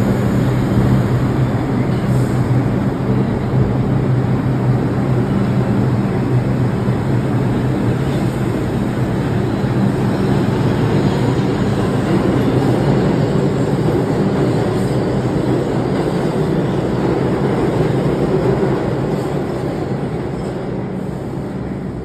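New York City subway train running through an underground station: a steady rumble with a low hum in the first half, fading away over the last few seconds.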